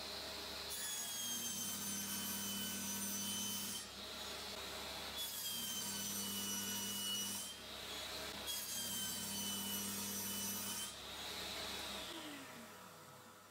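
Table saw ripping a pine board three times, the blade's pitch dropping under load on each cut and recovering between them; near the end the saw is switched off and its whine falls away as the blade spins down.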